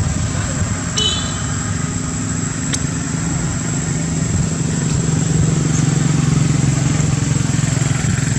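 A motor vehicle engine running steadily nearby, its low hum growing louder about halfway through, over a thin steady high-pitched whine. A brief high chirp about a second in.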